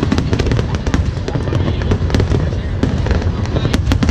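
Aerial fireworks display going off: many sharp reports and crackles in quick succession over a continuous low rumble, with some of the sharpest bangs near the end.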